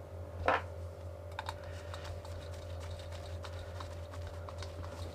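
Small scattered clicks and taps of a screwdriver working a terminal screw and handling the plastic body of a red 32 A three-phase plug, with one short knock about half a second in; a steady low hum underneath.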